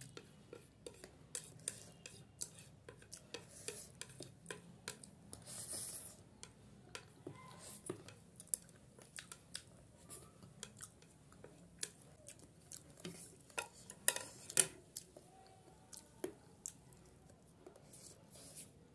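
Eating utensil clinking and scraping against a dish while noodles are eaten: many light, irregular clicks, with a couple of louder clinks about fourteen seconds in.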